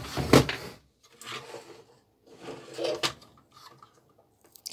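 Handling noise from the opened plastic radio and its parts on the bench: a loud knock and rustle at the start, then softer scrapes and a sharp click, with small ticks near the end.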